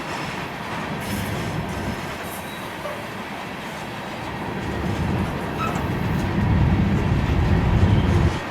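Freight train cars rolling past on the rails, a continuous rumble and clatter. Strong gusty wind buffets the microphone, and the low rumble swells louder from about five to eight seconds in.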